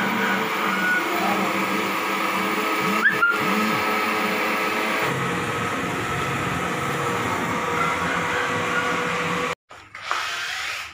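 Automatic CNC fused Clapton coil winder running steadily, its motor spinning the wire with a whine made of several steady tones. It stops abruptly near the end.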